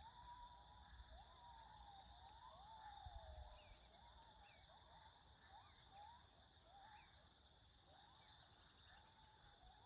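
Faint open-grassland ambience: birds giving short rising and falling whistles, one or two a second, over a steady high-pitched insect drone. The elephant itself is not heard.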